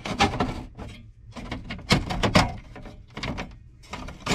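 Metal radio mounting sleeve knocking and clanking in the dash opening as it is worked loose and pulled out, a run of sharp knocks in several clusters.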